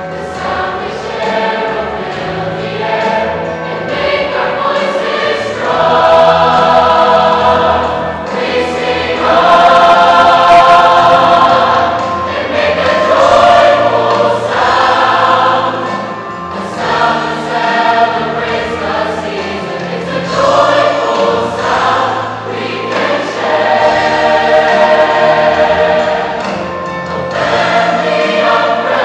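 Large mixed choir of men's and women's voices singing in harmony, the phrases swelling louder and easing off again.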